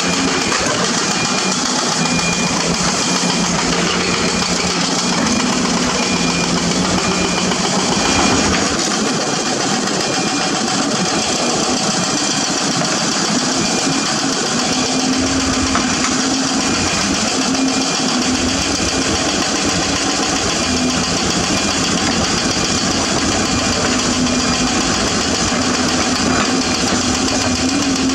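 Diesel engine of a Zoomlion ZE490EK-10 ripper excavator running steadily under load while its ripper shank tears into limestone. The engine note shifts about eight seconds in and again around fifteen seconds.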